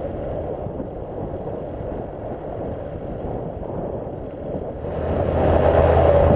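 Gusty wind buffeting the microphone. About three-quarters through, a louder, steadier drone comes in.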